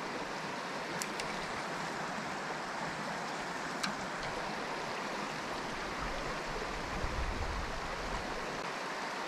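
Small woodland trout stream flowing, a steady rush of running water. A few faint clicks come about a second in and again near four seconds.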